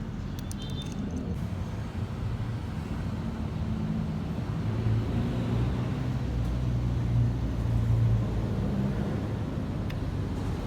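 Suzuki Raider 150 Fi's single-cylinder four-stroke engine running, a steady low hum that swells a little a few times in the middle.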